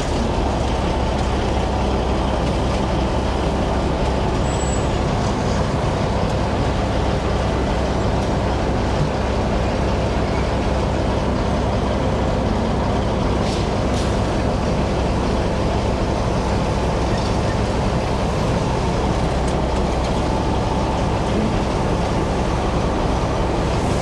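Steady drone of heavy diesel machinery: a dump truck's engine running, with an asphalt milling machine working close by. Low and even throughout, with no break.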